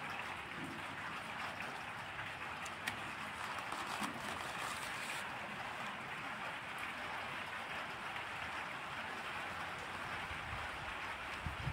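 Steady background hiss with a few faint ticks, and paper pages rustling as a sheet is turned partway through.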